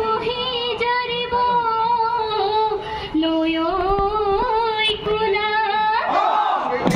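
High female voice singing a Bihu song in long held, slightly wavering notes, with a rising and falling swoop about six seconds in.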